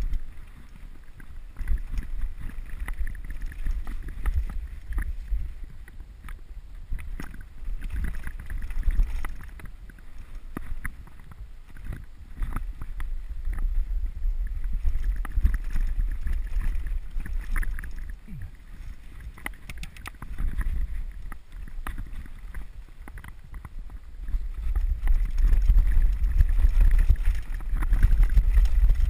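Mountain bike riding down a rough dirt and stone trail: wind buffeting the microphone over the rumble of the tyres and the rattle and knocks of the bike on the uneven ground. It grows louder near the end as the bike picks up speed.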